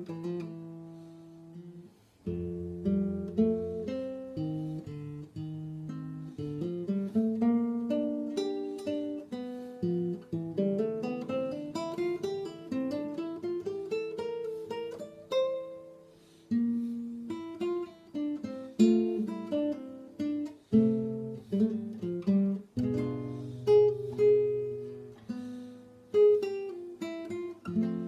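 Solo nylon-string classical guitar, fingerpicked: a slow melody of single plucked notes over held bass notes. It stops briefly about two seconds in, and in the middle a run of notes climbs and then comes back down.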